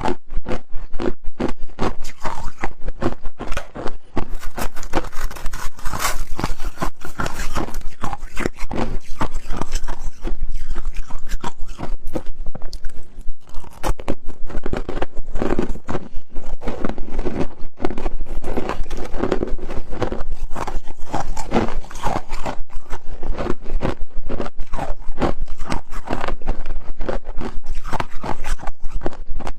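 Close-miked crunching and chewing of powdery freezer frost: a dense run of sharp crisp crunches, several a second, without pause.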